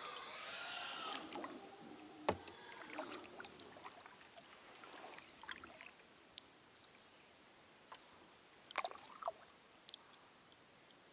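Kayak being paddled: water splashing and dripping from the paddle, loudest in the first second or so, with one sharp knock about two seconds in and scattered fainter clicks and knocks after it.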